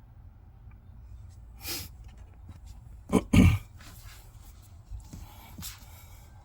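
A man sneezing once about three seconds in, after a sharp in-breath, over a low steady hum.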